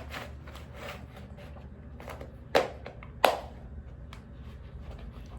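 Two sharp taps, under a second apart, over a low steady hum.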